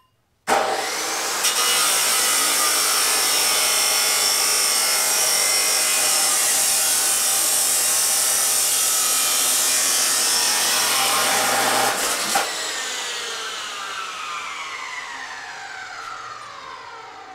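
Abrasive chop saw starting up suddenly about half a second in and cutting through 3-inch mild steel exhaust pipe, running steady and loud throughout the cut. At about twelve seconds the motor is switched off and the blade spins down, its whine falling in pitch as it slows.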